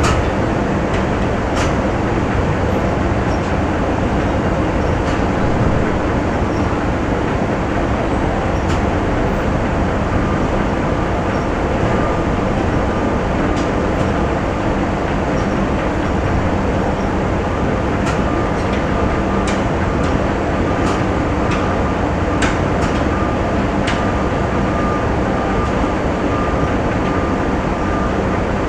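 Factory machinery running in a steady, dense din, with scattered sharp clicks and knocks. A faint high whine comes in about ten seconds in and holds more steadily from about eighteen seconds on.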